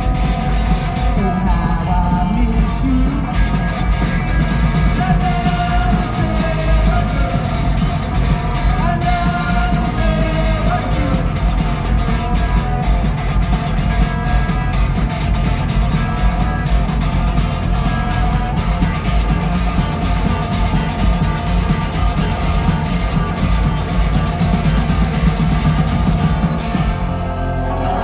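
Rock band playing live: electric guitars and drums, with a sung vocal.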